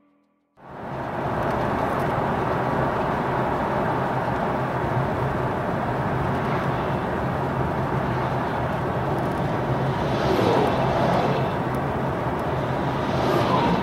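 Vehicle driving on a paved highway, heard from inside the cabin: steady road and engine noise that starts abruptly about half a second in.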